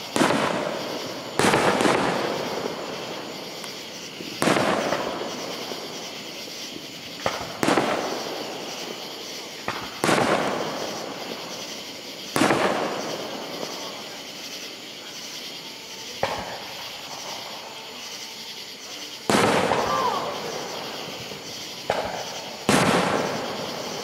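Aerial firework shells bursting: about a dozen sharp booms a second or a few seconds apart, each followed by a fading, echoing tail.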